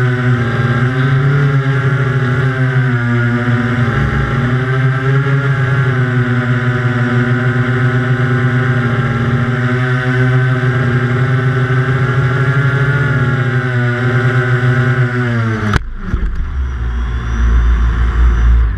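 Small quadcopter's electric motors and propellers running with a steady buzz that wavers slightly in pitch, then stopping abruptly about sixteen seconds in as the craft sets down on the grass and the motors are cut. A low rumble follows.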